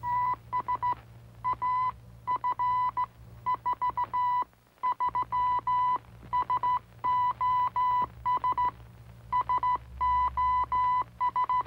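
Cartoon sound effect of a moose-antler horn blown as a warning signal to the animals: one steady beeping tone sounded in a run of short and long beeps, like Morse code dots and dashes.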